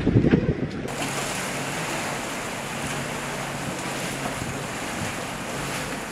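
Wind buffeting the microphone in gusts, then, from about a second in, a steady rush of wind and water from a sailboat under way in open sea.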